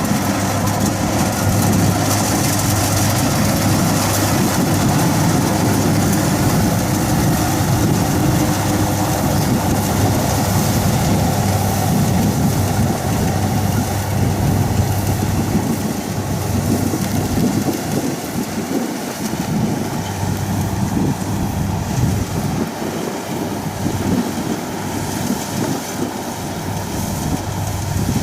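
Kubota DC60 combine harvester running steadily while cutting rice at speed: a continuous diesel engine and machinery drone, its low hum weakening somewhat in the second half.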